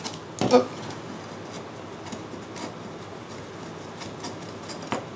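Faint clicks and taps of small spacers and screws being fitted by hand into a multicopter frame plate. There is a short louder sound about half a second in and a sharp click near the end.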